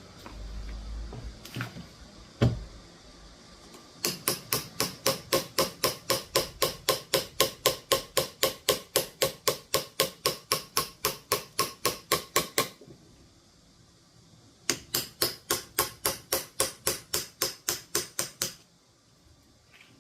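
Mallet tapping a changkal carving knife into wood for relief carving, in two runs of steady, even strikes about four a second, with a pause of about two seconds between. A couple of single knocks come before the tapping starts.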